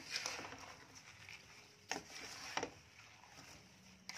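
Wooden spatula stirring and turning thin slices of fresh ginger and sugar in a metal wok, a soft scraping with a few sharp knocks of the spatula against the pan, about two seconds in and again shortly after. The stirring is meant to melt the sugar over the heat.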